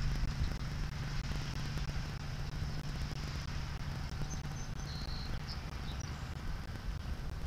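Seaside outdoor ambience: a steady low rumble and hiss of surf and wind on the microphone, with a few faint, short high chirps about four to five seconds in.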